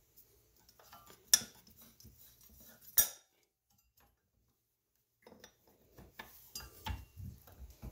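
Metal clicks and clinks from hands handling a stopped metal lathe's chuck and workpiece: two sharper clinks in the first three seconds, a silent gap in the middle, then a run of small taps and knocks.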